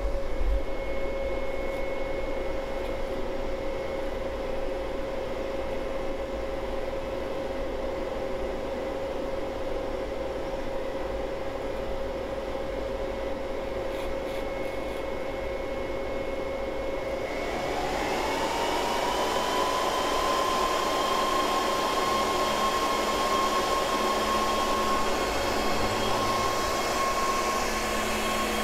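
Xserve G5 cluster node's cooling fans running with a steady whirring whine. The pitch drops and settles just as it starts, then climbs about 17 seconds in to a higher steady whine as the fans speed up.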